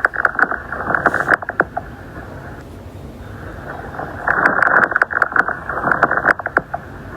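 Stethoscope recording of fine lung crackles: over a steady breathing hiss, two clusters of short crackling clicks, one at the start and another about four seconds in. This is the Velcro-like sound of collapsed small airways snapping open during inspiration, typical of interstitial lung disease such as pulmonary fibrosis.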